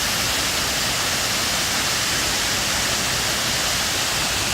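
Steady rush of falling water from the Benang Kelambu waterfall, an even hiss that holds constant throughout.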